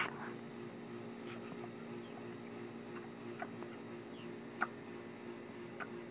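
Pot-bellied pig making short, soft squeaks, one every second or so, over a faint steady hum.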